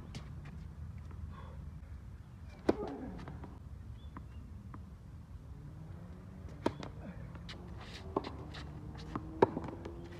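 Tennis balls struck by racquets and bouncing on a hard court: a string of sharp, separate pops several seconds apart, the loudest near the end, over a steady low background rumble.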